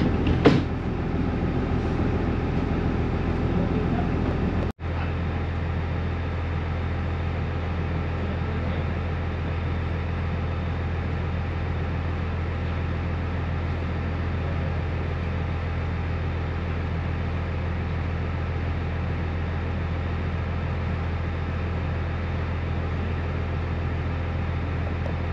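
Steady mechanical running noise of the NER Autocar railcar heard from the driver's cab, with a continuous low hum. The sound cuts out for an instant about five seconds in, then carries on as a steadier low drone.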